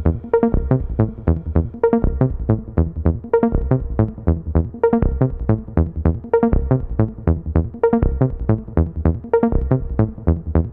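Electronic background music with a steady, quick beat.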